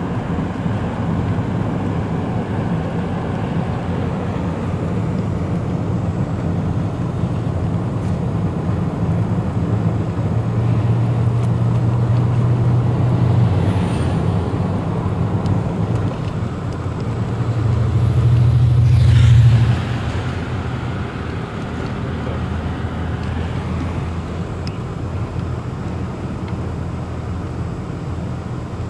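Engine and road noise heard inside a moving car's cabin: a steady low drone that swells about ten seconds in and again near eighteen seconds, then drops back suddenly.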